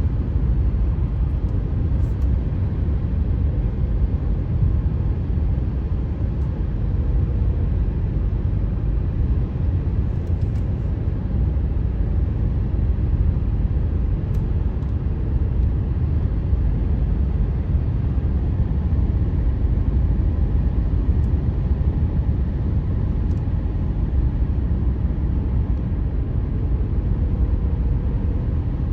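Steady low rumble of tyre and road noise heard from inside a car cruising on a highway, with no rise or fall in speed.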